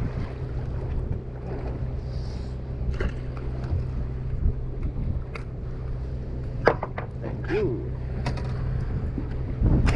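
Charter fishing boat's engine running with a steady low hum, with scattered sharp clicks and knocks over it.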